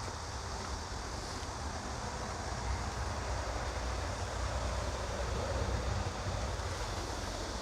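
Wind noise on the microphone: an uneven low rumble over a steady outdoor hiss.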